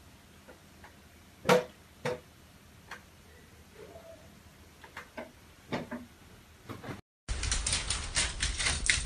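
A few soft knocks and clicks in a quiet room, the loudest about a second and a half in. Near the end the sound cuts out for a moment and a much louder, busy stretch of clattering noise starts abruptly.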